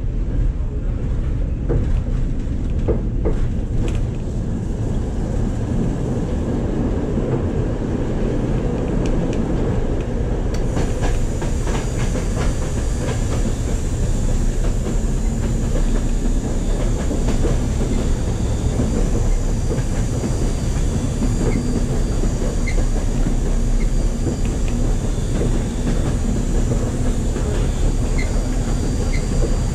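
Streetcar running along its track, heard from inside the car: a steady low rumble of wheels on rail, with scattered clicks and knocks from the wheels and running gear. About ten seconds in the sound turns brighter, with a higher hiss and a faint steady whine joining the rumble.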